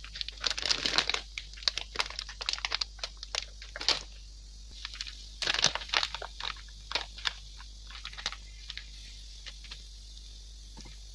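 A plastic packet of meatball flour mix crinkling as it is handled and tipped to pour flour into a bowl. The crinkling comes in irregular spells, densest in the first second and again around five to seven seconds in, sparser towards the end.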